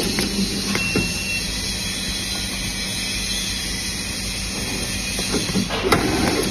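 Teflon tape wrapping machine for threaded fittings running with a steady mechanical whir, with a click about a second in and a louder clatter near the end as a fitting is pushed into the wrapping head.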